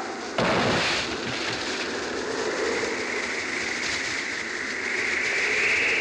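A sudden heavy crash about half a second in, as a falling body slams onto a car and smashes its window glass, followed by a sustained noisy wash that swells toward the end.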